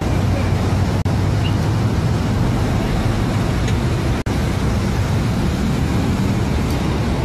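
Steady motor-vehicle engine and road noise, with a low engine hum. It drops out briefly about a second in and again about four seconds in.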